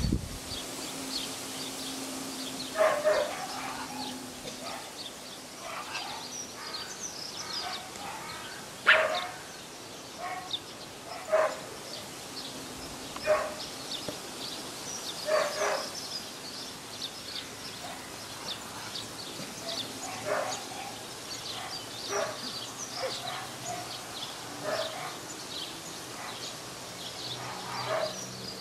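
Pyrenean Sheepdog puppy barking at sheep: short single barks repeated irregularly every one to several seconds, with faint bird chirps behind.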